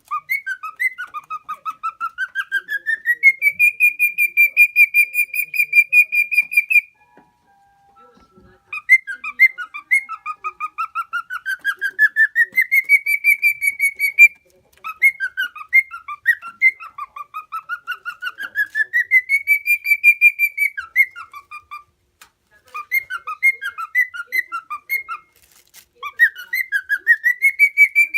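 Male lutino cockatiel whistling its song: phrases that sweep up and hold a high whistled note, repeated in about five bouts with short pauses between them.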